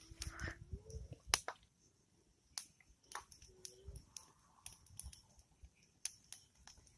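Wood fire of twigs and logs crackling, with sharp, irregular pops and snaps over a steady faint high hiss.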